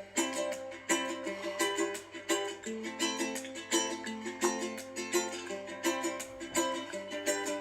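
Background music: a ukulele playing a steady accompaniment of quick plucked notes, starting abruptly.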